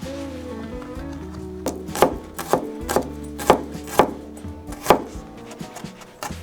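Kitchen knife chopping food on a cutting board in slow, separate strokes, about seven of them starting a little under two seconds in and stopping around five seconds, over soft background music.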